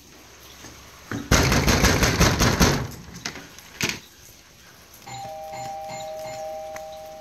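A two-tone electronic doorbell chime about five seconds in, two notes starting a fraction of a second apart and ringing on, slowly fading. Before it, about a second in, a second and a half of loud rustling and scraping as a door is handled, then a single click.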